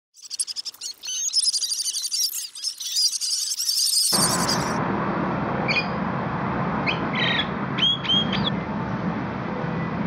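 For the first four seconds, a dense, high-pitched twittering of many birds. It then cuts to the steady background noise of an open-air café, over which a Javan myna gives a few short whistled calls, the last two about half a second apart.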